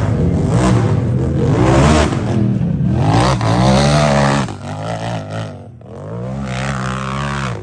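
Race UTV engine revving hard under throttle, its pitch climbing and dropping in several surges, then running quieter with smaller revs from about halfway through.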